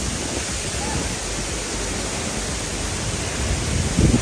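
A steady rushing noise with a rumbling low end, and a short low thump about four seconds in.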